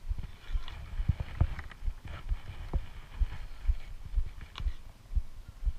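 Tiger eating raw meat, with wet chewing and sharp clicks of its teeth and jaws, over irregular low thumps.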